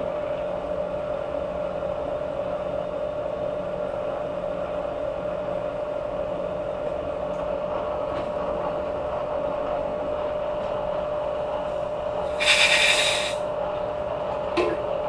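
Vertical milling machine running steadily with a constant hum, set up for reaming an LS3 block's lifter bores. About twelve seconds in, a short, loud hiss of a compressed-air blow gun.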